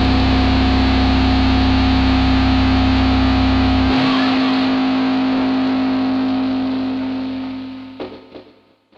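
Raw lo-fi black metal: a dense wall of distorted guitar over a steady held note. The low end drops out about four seconds in, then the track fades out near the end.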